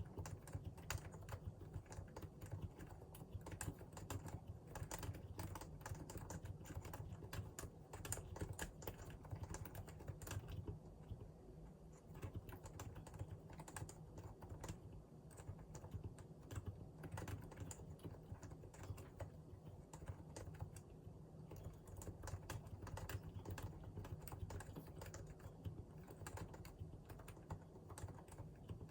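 Continuous fast typing on a Realforce R2 PFU Limited Edition keyboard with Topre capacitive switches: a dense, irregular run of key strokes that thins out briefly a couple of times.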